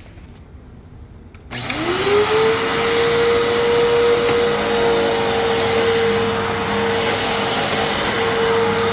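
Fantom Fury 12-amp vacuum cleaner switched on about a second and a half in, its motor whine rising quickly to a steady pitch, then running steadily with a loud rush of air.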